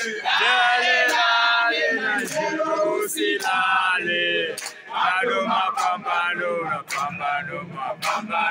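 A group of men singing and chanting together in celebration, with handclaps.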